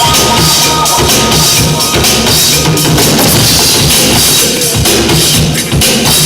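Loud music with a heavy drum beat and a strong bass line.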